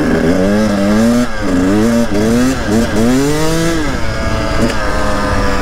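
KTM 300 TPI's single-cylinder two-stroke engine revving up and down as the bike is ridden. Its pitch rises and falls about four times, then holds steadier near the end.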